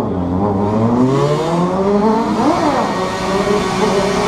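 Motorcycle engine pulling away under throttle, its pitch climbing for about two seconds. Near the middle it revs up sharply and drops back, then holds a steady pitch.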